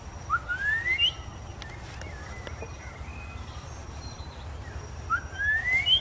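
Rose-ringed parakeet giving two rising whistled calls, one shortly after the start and one near the end, each under a second long.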